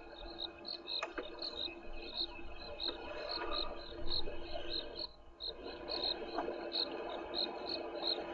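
An insect, cricket-like, chirps in an even high pulse about three times a second. Over it come bursts of rustling and tearing as an elephant's trunk pulls up grass, around the middle and again later on.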